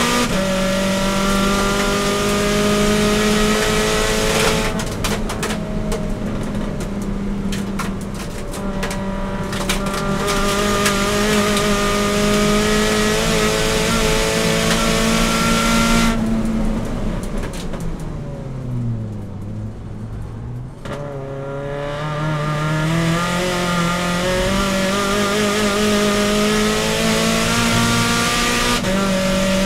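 Audi TT Cup race car's engine heard from inside the cabin, running at high revs under full throttle. About halfway through, the revs fall steeply for a corner, stay low for a couple of seconds, then climb back in steps as it accelerates through the gears. Rattling clicks sound for several seconds about five seconds in.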